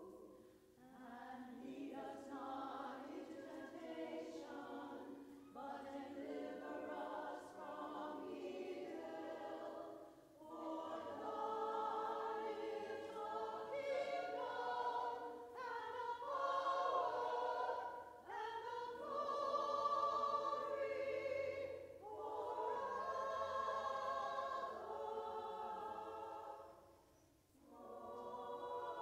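Women's choir singing together, in phrases broken by short pauses for breath, growing louder from about a third of the way in.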